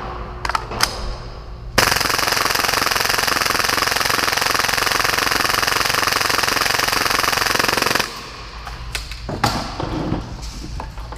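Full-auto Tokyo Marui Hi-Capa airsoft pistol, running on an air tank at 120 PSI, firing one continuous burst of about six seconds at its rate of roughly 30 rounds per second, which cuts off suddenly. A few clicks and knocks of handling come before and after the burst.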